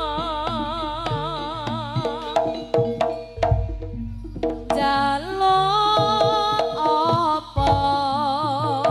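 Live East Javanese jaranan ensemble music: a sustained melody with wide vibrato over a steady run of hand-drum strokes and a deep bass.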